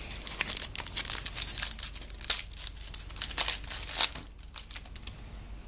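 Trading-card pack wrapper being torn open and crinkled in the hands: a dense run of crackling that dies down after about four seconds.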